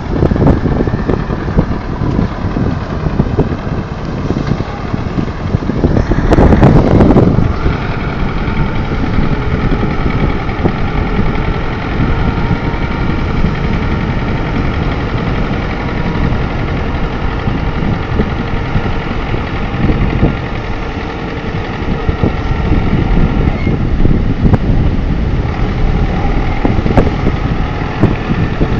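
Tractor engine running steadily, with a louder swell about six seconds in.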